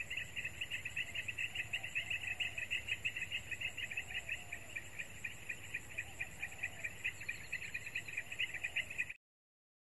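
Crickets chirping in a fast, even pulsing trill, cutting off suddenly near the end.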